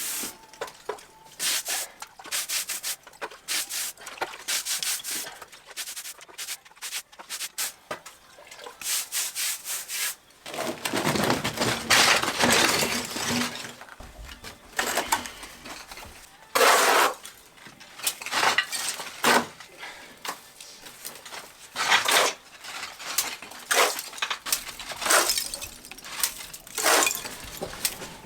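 Hand tools working on stone and concrete: a long run of short scrapes, knocks and clinks, with a few longer scraping passages near the middle.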